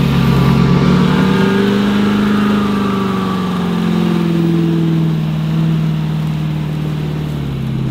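Lifted Ford F-350 pickup's engine revving hard and held at high revs while its duct-tape tires spin in deep mud. The pitch climbs a little over the first couple of seconds, then slowly sinks toward the end.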